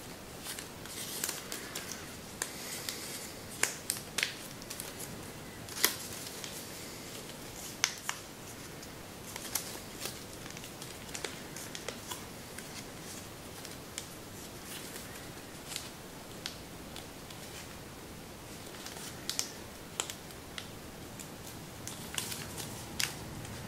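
Kami origami paper being folded and shaped by hand: irregular crisp crackles and sharp clicks as the paper is creased and pinched, with soft rustling in between.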